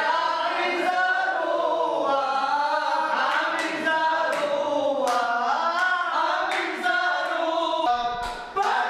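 A group of men chanting Jewish prayers together, their voices sliding between notes in a continuous sung line. The singing dips briefly about eight seconds in, then carries on.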